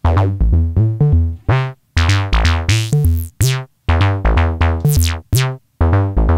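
Xaoc Devices Sofia analog oscillator playing a sequenced bass line in short, quickly decaying notes, about four a second, with a short break every two seconds or so. Its ripple element, swept by the envelope, gives each note a filter-like resonant sweep, and with the warp at its extremes the tones turn wilder, somewhere between a filter, FM and wave folding.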